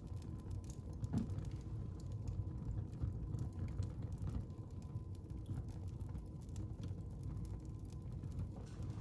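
Wood fire burning in a fireplace: a steady low rumble of flames with scattered crackles and pops, one louder pop about a second in.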